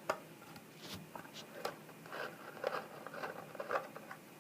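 Small clicks and short scrapes of a screwdriver and hands working on the plastic case of a KP-2200 bump bar, backing out its small case screws.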